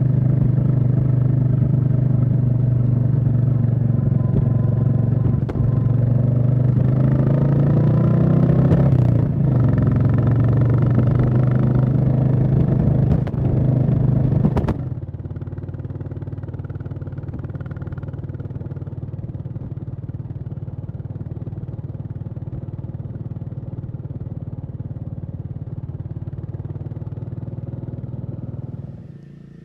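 Royal Enfield Classic 350's single-cylinder engine running under way, its pitch rising around eight seconds in as the bike accelerates. About halfway through, the sound cuts abruptly to a quieter, duller, steady engine drone.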